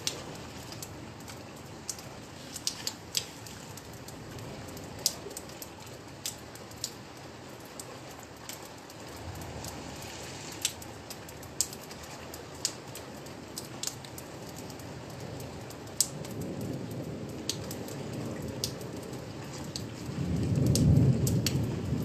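Steady rain with scattered sharp drops striking close by, and a low roll of thunder that builds about two-thirds of the way through and is loudest near the end.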